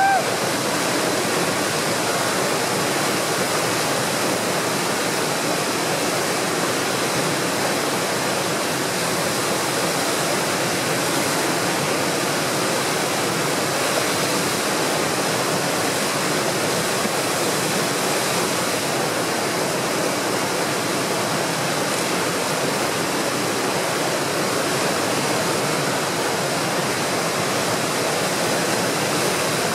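Steady rushing roar of fast tidal rapids, whitewater pouring over large standing waves at peak flow of a big tidal exchange. A brief high rising tone sounds right at the start.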